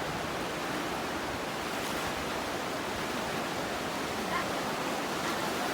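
Steady rushing of a river in flood, a constant wash of water noise.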